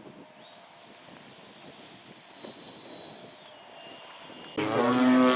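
Faint, steady high whine of a radio-control model airplane in flight, its pitch dropping a step about three and a half seconds in. Near the end it switches abruptly to a loud, steady drone of a model airplane's motor and propeller close by.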